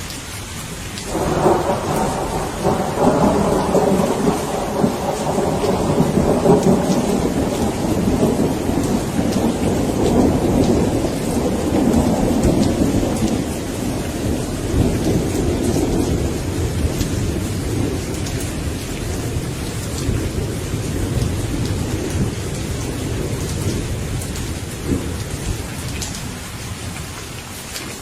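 Rain falling steadily, with a long rolling clap of thunder that breaks in suddenly about a second in and slowly rumbles away over the next twenty seconds or so.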